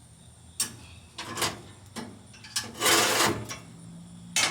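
A handful of sharp knocks and short scraping rushes, the loudest a scrape of about half a second near the middle and a last knock near the end: metal parts of a charcoal smoker being handled after a wood chunk was added to the fire.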